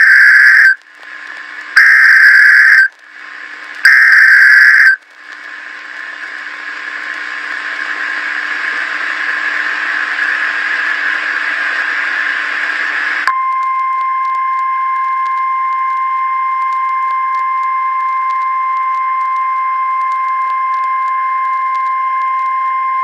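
Emergency Alert System broadcast tones. First come three loud screeching data bursts of the SAME header, each about a second long. Next a hissing, buzzing noise swells for several seconds and cuts off abruptly. The rest is a long, steady, piercing alert tone.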